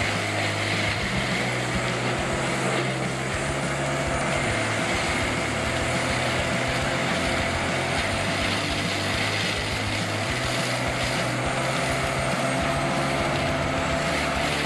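Tree-mulching bulldozer's diesel engine running, a steady heavy drone with no let-up.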